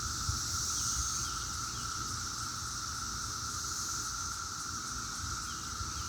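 Steady droning chorus of 17-year periodical cicadas, a continuous hum with a lower band and a higher band that hold level throughout, over a low rumble.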